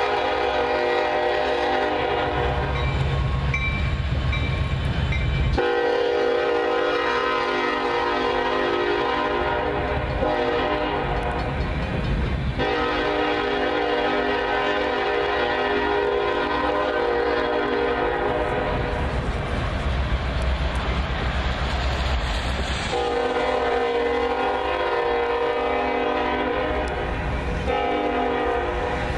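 Union Pacific SD70ACe locomotive's air horn sounding in long chord blasts, with short breaks about six, thirteen and twenty-three seconds in. Under it runs the rumble and clatter of loaded ballast hopper cars rolling past.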